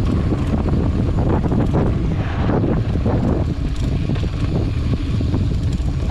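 Wind buffeting the microphone over the rattle and crunch of a mountain bike rolling down a rough dirt trail, with many small knocks and clicks from the bumps.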